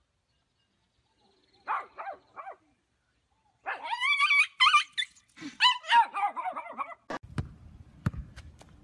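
Small dog yelping three short times, then crying in long wavering whines. A few sharp clicks follow near the end.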